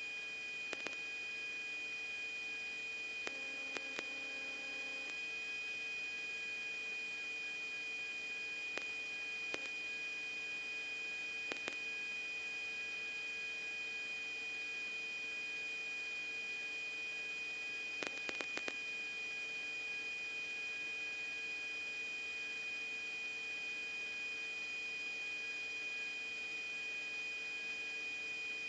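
Steady electronic hum and high whine with hiss from an idle radio channel, with a few faint clicks scattered through it and a brief low double tone about three to five seconds in.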